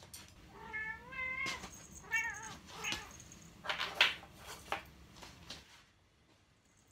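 Domestic cat meowing insistently, two or three wavering calls in quick succession, begging for food or treats. A few short knocks on the floor follow about four seconds in.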